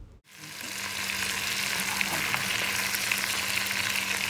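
Small pieces of chicken breast frying in hot oil in a pan, sizzling steadily as a spatula turns them. The sizzle rises in over the first second after a brief cut.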